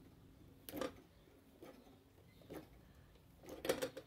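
About five faint clicks and light knocks from lineman's pliers twisting copper wire ends together and the wires being handled at a metal electrical box, the loudest cluster near the end.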